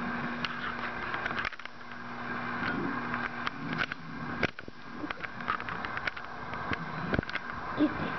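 Clear plastic hamster ball rolling across a hardwood floor with a steady rumble, with scattered clicks and taps of a bulldog puppy's paws on the boards.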